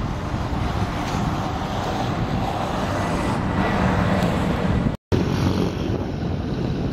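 Wind buffeting the camera microphone over a steady low rumble. The sound drops out for a moment at an edit about five seconds in, then the wind carries on.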